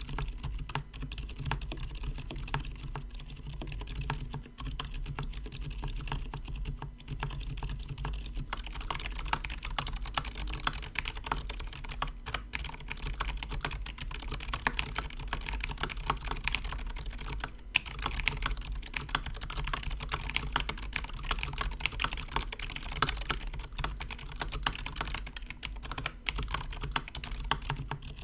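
Typing on a KBD67 Lite mechanical keyboard fitted with lubed silent tactile switches: a steady stream of dampened keystrokes, quick and overlapping.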